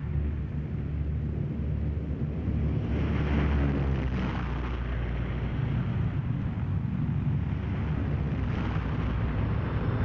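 Propeller aircraft piston engines running with a steady low rumble and a rushing noise over it, a little louder about three seconds in.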